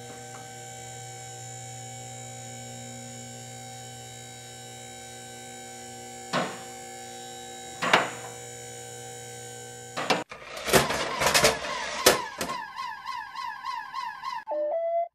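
Steady electrical hum for about ten seconds, broken by two short clicks. Then sharp clicks and a fast-warbling electronic siren from a toy fire engine.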